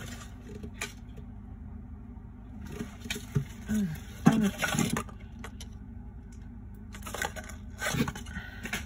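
Fingers handling a small diecast toy truck, scattered clicks and taps of metal and plastic as it is worked at to open its doors, with the sharpest click about four seconds in.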